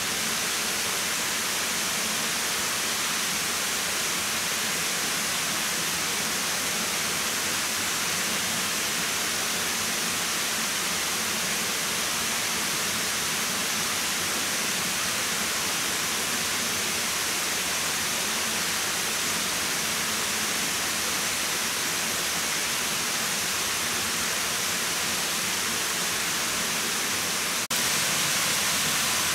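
A steady, unchanging hiss of outdoor ambient noise with no distinct events, stepping slightly louder at an edit near the end.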